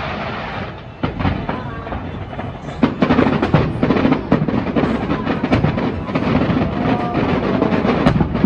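Fireworks display: a rapid run of bangs and crackling from aerial shells bursting, thickening about three seconds in.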